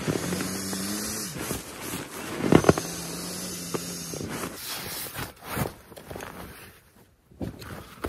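Rustling and crinkling of tent nylon and a sleeping pad and stuff sack being handled, with sharp knocks and scrapes, loudest a little after two seconds in. A low steady hum sounds twice, for about a second each time. The sound drops almost to nothing for a moment shortly before the end.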